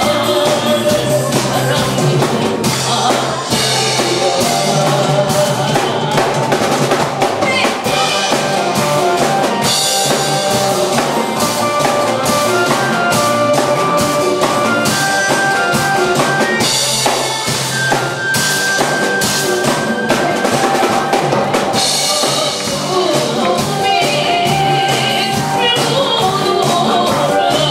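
A woman singing a Korean trot song into a microphone over a backing band with a drum kit. The singing drops out for an instrumental stretch in the middle, then returns near the end.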